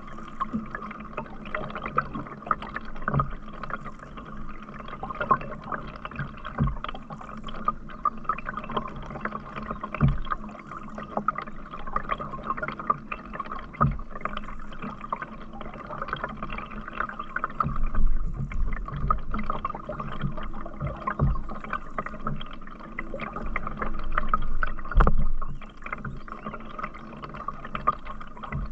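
A canoe being paddled: water splashing and dripping off the paddle, with a dull knock about every three to four seconds.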